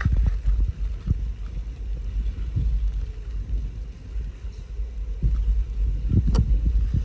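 Low, steady rumble of wind buffeting the microphone, with a few faint clicks, the sharpest one near the end.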